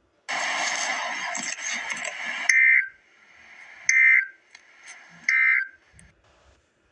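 Emergency Alert System end-of-message data tones: three short, shrill digital bursts about a second apart, marking the end of the alert. They are preceded by about two seconds of loud, harsh buzzing noise.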